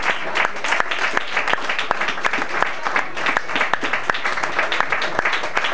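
Small group of people applauding in a room, steady clapping of many hands.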